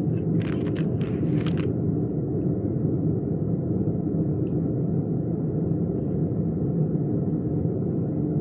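A steady low rumble, with a few short sharp clicks in the first two seconds.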